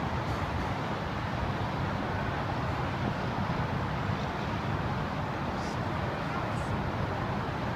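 Steady rush of wind mixed with the hum of busy highway traffic far below.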